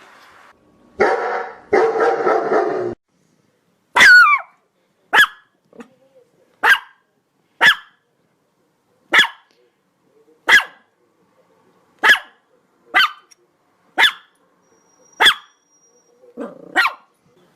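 Dog barking in single short, sharp barks, about a dozen of them, spaced roughly one to one and a half seconds apart. They follow a rougher, noisier sound of about two seconds near the start.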